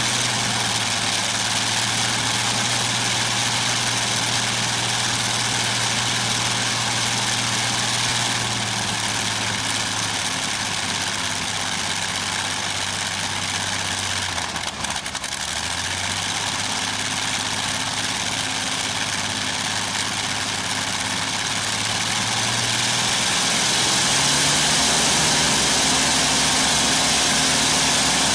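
Continental IV-1430 inverted V-12 aircraft engine running on its test stand. It holds a steady speed, dips briefly about halfway, then speeds up and gets louder about 23 seconds in.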